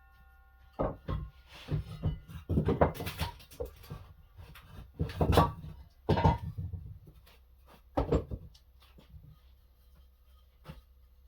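Irregular knocks and clunks of larch timber offcuts being handled and set down, over about eight seconds, then one faint knock near the end.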